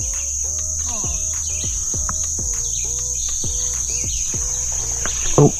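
Steady high-pitched drone of insects singing in the trees, with a lower pitched sound pulsing about two to three times a second underneath.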